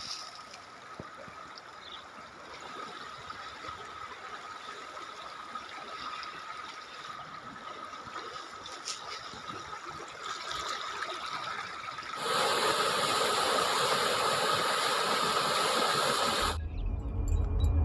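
Rain falling, a steady hiss with a faint steady whine under it. It grows clearly louder about twelve seconds in, and shortly before the end it gives way to a deep low sound.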